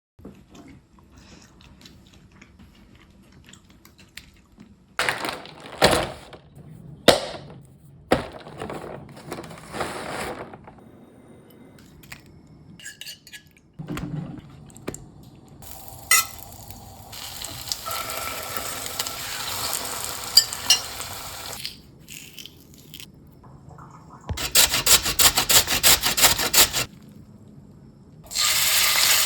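Home kitchen cooking sounds: dishes and utensils clinking and knocking, then a couple of seconds of rapid repeated tapping, and near the end food starting to sizzle in a hot pan.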